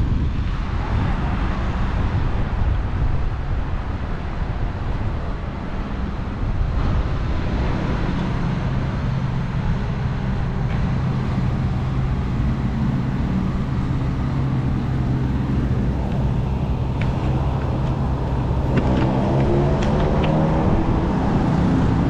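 Strong wind rushing over the microphone of a moving bicycle's camera. A steady vehicle hum comes in about a third of the way through and grows louder towards the end.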